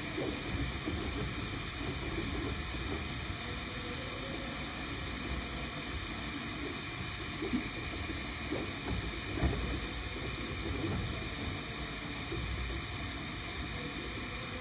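3D printer running: a steady whirring hum with several constant tones from its fans and motors, and a few faint low knocks.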